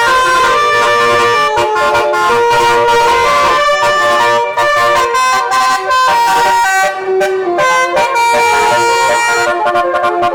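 Indonesian bus basuri horn, a set of electric air-horn trumpets, playing a loud melody of held notes that step up and down in pitch without pause.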